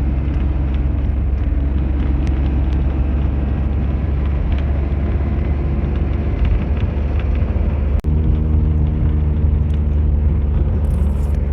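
Car driving, heard from inside the cabin: a steady low drone of engine and road noise. The sound cuts out briefly about eight seconds in.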